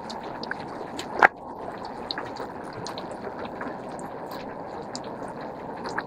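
Shallow river running over rocks: a steady rush and babble of water, with one brief sharp click a little over a second in.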